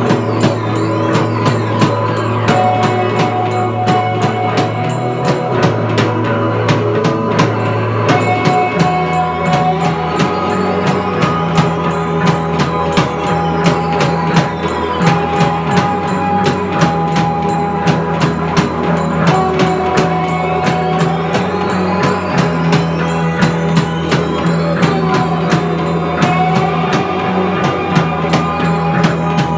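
Live rock band playing an instrumental passage. A drum kit keeps a fast, steady beat with cymbals over electric bass, electric guitar and keyboard.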